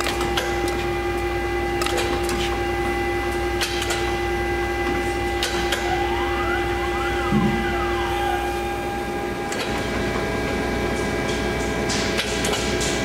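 Roper Whitney AB1014K CNC sheet-metal folder running under power: a steady electric hum and whine. About halfway through, a motor whine rises and then falls in pitch. Scattered clicks run throughout, thicker near the end.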